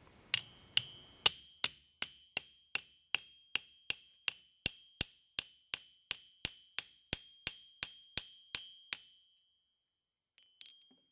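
A hammer striking a cold steel chisel about three times a second, driving it at an angle against sheet brass laid over a brass rod on a steel anvil to curl the brass into a hinge barrel. Each blow leaves a high metallic ring. The blows stop about nine seconds in, and a faint clink follows near the end.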